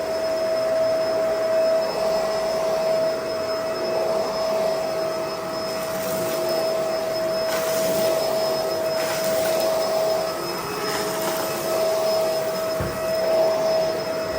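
Bissell 2-in-1 Lift-Off vacuum cleaner running steadily with a constant motor whine. It turns rougher and hissier for a few seconds in the middle.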